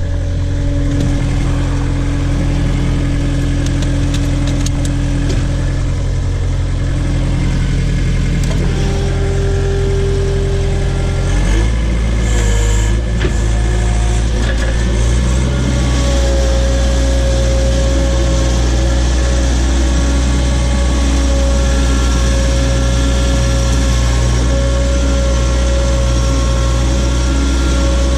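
Case/Davis D100 backhoe's engine running steadily while the machine works. Its low hum shifts about a third of the way in and then holds, with a thin steady whine over it for the second half.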